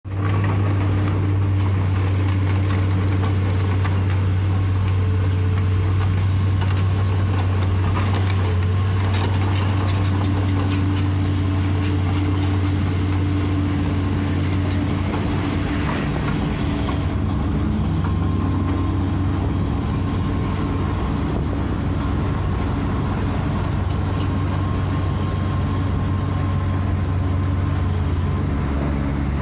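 Heavy diesel engine running steadily with a deep, constant hum, as from an excavator or bulldozer at work.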